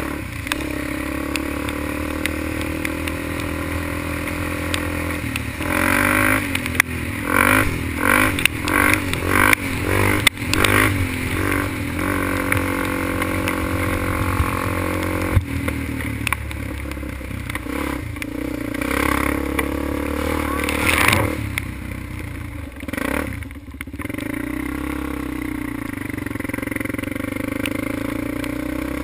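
ATV (quad) engine running on the move, its pitch rising and falling with the throttle, with a quick run of repeated revs about six to twelve seconds in and another rev-up near twenty seconds.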